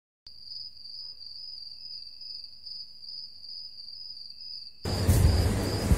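A cricket trilling steadily on one high pitch. Near the end it cuts off abruptly, and louder rumbling room noise with a few knocks takes over.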